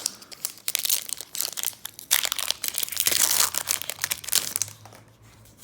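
Foil Pokémon booster pack wrapper crinkling and being torn open: a dense run of crackles that dies away near the end.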